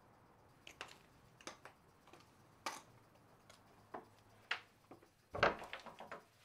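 A run of light footstep-like taps on a hard floor, roughly two a second, then a wooden front door is shut with a heavy thud near the end, followed by a quick rattle of clicks from its latch and lock hardware.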